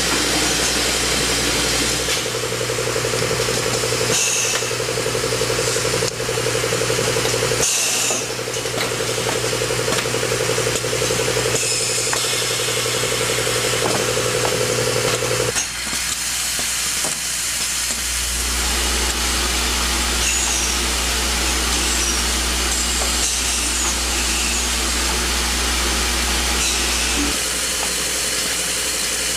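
Automated tube-bending and assembly machinery running: a steady machine hum with short hisses of air from pneumatic cylinders and valves as the stations cycle. About halfway through the hum stops and a deeper hum takes over.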